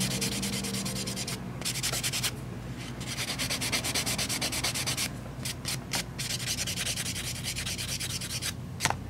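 White block nail buffer rubbed rapidly back and forth over a gel nail, a fast scratchy rasp broken by a few brief pauses, smoothing the cured gel surface before the top coat.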